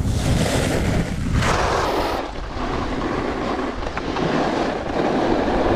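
Snowboard sliding and scraping over groomed snow while the rider slows down, with wind buffeting the microphone. The low wind rumble is strongest early, and a grainy scraping hiss takes over about a second and a half in.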